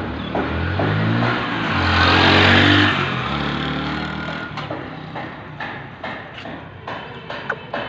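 A motor vehicle passing by: its engine swells to a peak about two to three seconds in, then fades away. Scattered sharp clicks and taps follow.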